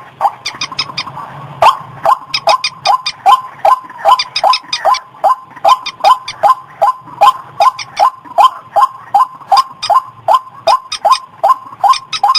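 Recorded lure call of the white-breasted waterhen (ruak-ruak): a fast, monotonous run of calls, about two or three a second, each note dropping in pitch. There is a break of about a second near the start before the calling resumes.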